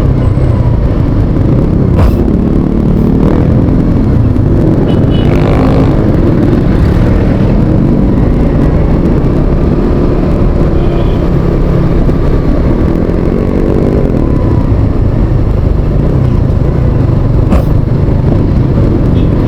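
Riding on a motorcycle: a loud, steady wind rumble on the microphone, with engine and traffic noise underneath and a couple of sharp clicks.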